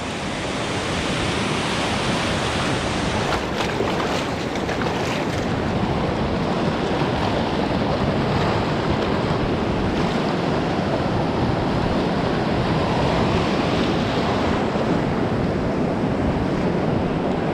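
Ocean surf washing in and churning as white water around rocks close by, a steady loud rushing, with wind buffeting the microphone.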